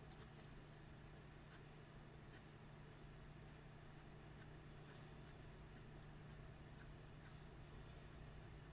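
Faint scratching of a fine-tip ink pen hatching quick short strokes on grainy heavyweight drawing paper, an irregular run of light scrapes over a steady low hum.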